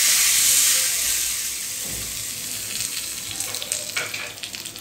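Tempering of hot coconut oil with mustard seeds and dried red chillies sizzling as it is poured from a tempering ladle onto a coconut-based curry; the sizzle is loudest at first and fades gradually, with a few crackles near the end.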